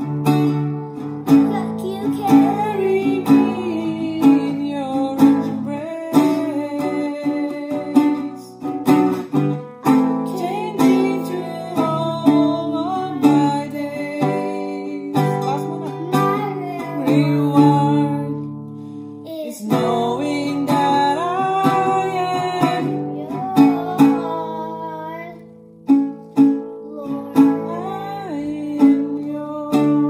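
A woman singing while strumming chords on a nylon-string classical guitar, with a few short breaks between phrases.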